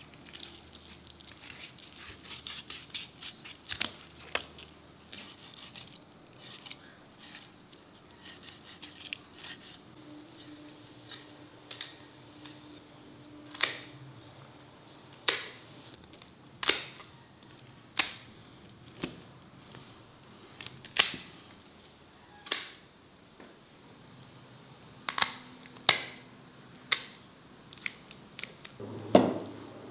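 A knife cutting and scraping through the flesh of a silver carp with a fine crackle, then kitchen shears snipping through the fish's rib bones, about a dozen sharp snaps a second or so apart.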